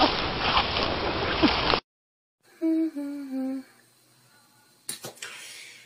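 A steady rushing noise that cuts off suddenly about two seconds in, then a person humming three short notes, each lower than the one before, then a click and a brief hiss near the end.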